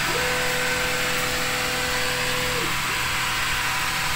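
Creality Falcon2 laser engraver running its frame: the stepper motors whine at one steady pitch as the laser head travels along the border of the work area, starting just after the beginning and stopping about two and a half seconds in. A steady background hum continues throughout.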